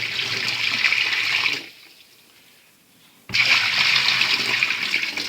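Water poured twice into the cleaned water-control chamber of a twin-tub washing machine, a rushing splash of about a second and a half, a pause, then a second pour about three seconds in, testing whether the chamber now holds the water without leaking.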